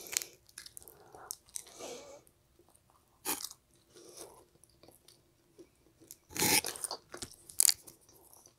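A person chewing and biting pizza close to the microphone: wet mouth sounds and crisp crunches of crust, with louder bites about three seconds in and again near the end.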